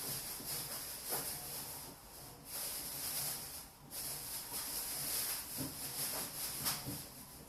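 Washing machine running: a hissing, swishing sound that comes in long surges, with short breaks about two and a half and four seconds in.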